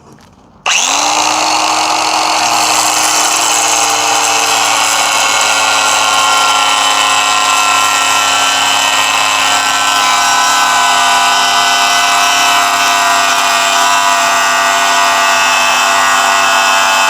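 Budget cordless angle grinder switched on about a second in, spinning up and then running hard and steadily while cutting into scrap metal. The whine sinks slightly in pitch as the disc bears down.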